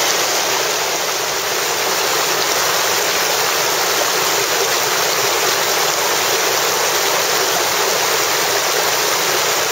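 Mountain river rushing steadily over boulders in shallow white-water rapids.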